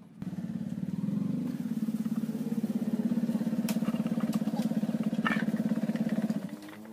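A motorcycle engine running steadily with a rapid, even pulse. It starts just after the beginning and cuts off about six seconds later. Two brief clicks sound in the middle.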